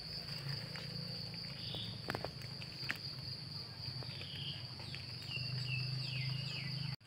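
Insects trilling steadily in the woods on one high tone, over a low steady hum. A few sharp crackles come from footsteps in the dry leaf litter, and a few short falling chirps sound near the end.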